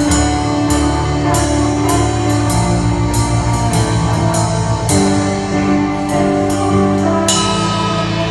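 Loud instrumental rock music: a drum kit with cymbal strikes about twice a second over sustained bass and chord notes, the cymbals opening into a brighter wash about seven seconds in.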